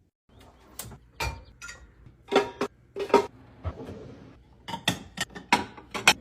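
Glass jars and containers clinking and knocking as they are picked up and set down, about fifteen sharp clinks in quick, irregular succession, some with a short glassy ring.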